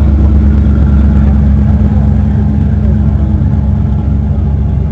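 Steady low rumble of a running vehicle engine, holding an even pitch throughout.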